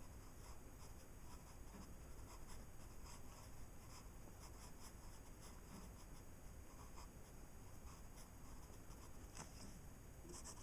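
Graphite pencil scratching on paper in many short, faint strokes.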